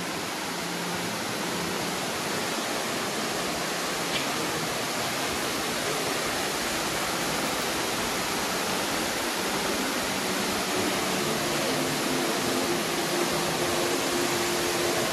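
Ruby Falls underground waterfall rushing in its cave: a steady, even roar of falling water that grows slightly louder, with a faint steady tone joining in during the second half.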